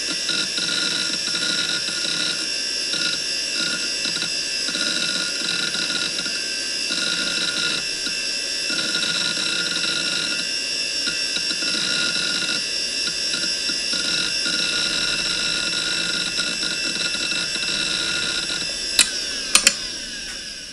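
Desktop hard drive spinning with a steady whine and irregular seek chatter as the computer shuts down. Near the end, three sharp clicks come as the power is cut, and the drive's whine falls away as it spins down.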